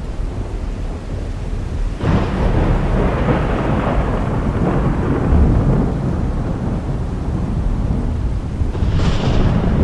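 Thunder: a continuous low rumble, with a sudden louder clap about two seconds in that rolls on for several seconds, and another short burst near the end.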